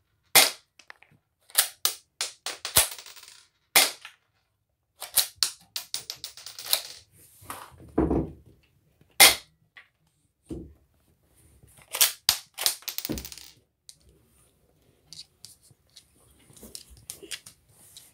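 Transparent toy Colt 1911 soft-bullet pistol with a plastic suppressor tube, its slide racked and fired again and again: a string of sharp plastic clicks and snaps in irregular clusters, with a duller knock about eight seconds in.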